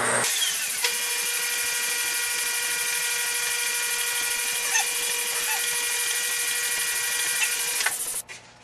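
Milling machine spindle running a small drill bit into an aluminum part, a steady hiss with a constant whine that cuts off sharply about eight seconds in.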